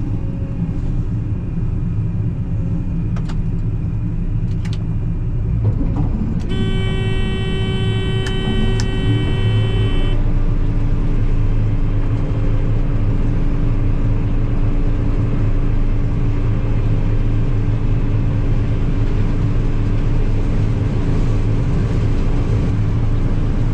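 Combine harvester's engine running steadily as it maneuvers in reverse, getting a little louder about ten seconds in. Partway through, a steady high tone with overtones sounds for about three and a half seconds, with a few light clicks.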